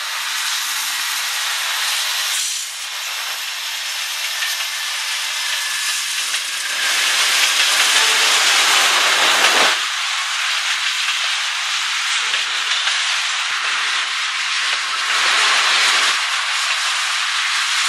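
Norfolk Southern freight train rolling past at close range: a steady rushing hiss of steel wheels on rail, louder for a few seconds around the time a pair of diesel locomotives in the middle of the train goes by, then tank cars rolling past.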